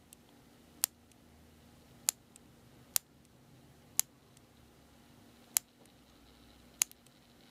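Piezoelectric spark generator clicking about six times at irregular intervals of roughly a second, each click firing a spark between the electrodes of a micro jet engine combustion chamber.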